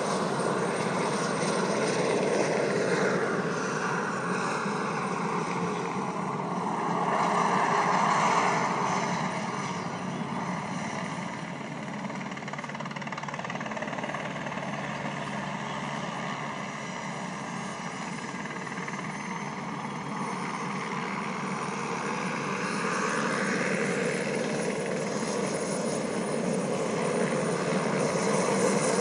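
Agricultural spray helicopter flying low over a rice field, its rotor and engine running steadily. It grows loudest as it passes about a quarter of the way in, fades while it turns away in the middle, and grows louder again as it comes back on the next spraying run near the end.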